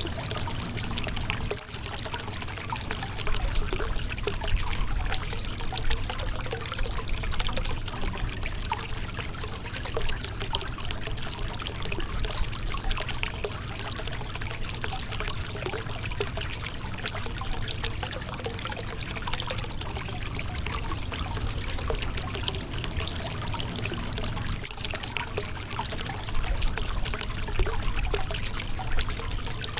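Shallow river water running over a rocky bed, a steady trickling and pouring.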